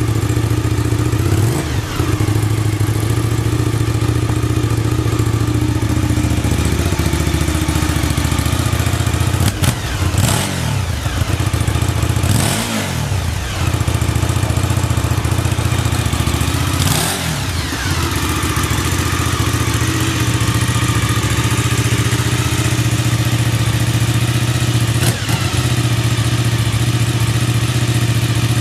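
Suzuki TL1000S 90-degree V-twin idling steadily, its throttle blipped about four times, each time the revs rising sharply and falling straight back. The idle is even, with no abnormal noises, the sign of an engine in sound running order.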